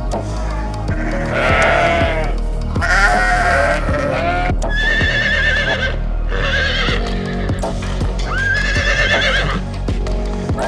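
Farm animal calls over steady background music: two wavering bleats in the first half, then three high, quavering whinnies.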